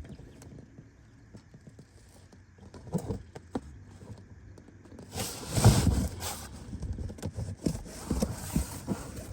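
Irregular knocks, clicks and scraping from hands handling a plastic tub and tools under the ATV during an oil drain, with a louder rustling, scraping stretch about five seconds in.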